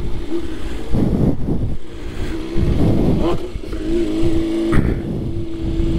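BMW S1000RR inline-four sport-bike engine pulling away under throttle, surging a few times, then holding a steady note from about four seconds in, with low wind rush.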